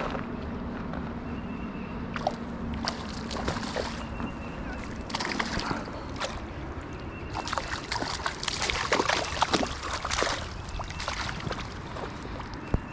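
A hooked trout splashing at the surface of a creek as it is played and landed: irregular bursts of splashes over the steady wash of moving water, busier in the second half.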